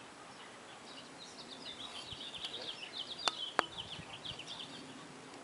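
A small bird singing a quick run of high, rapid chirps, with two sharp clicks about three seconds in.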